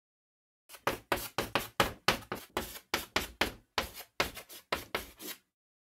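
Chalk-writing sound effect: a quick run of sharp chalk taps on a blackboard, about four a second, starting about a second in and lasting some four and a half seconds.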